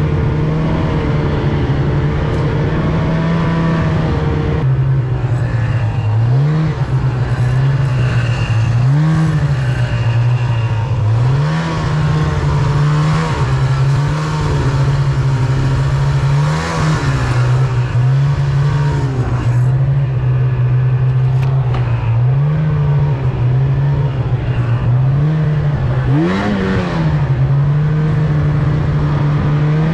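Snowmobile engine running hard through deep powder. Its pitch climbs and falls back again and again as the throttle is blipped, with a steadier note at the start and near the end.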